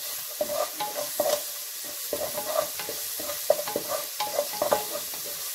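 Wooden spatula stirring and scraping chopped onions, curry leaves and garlic paste sautéing in hot oil in a pan, in quick irregular strokes over a steady sizzle.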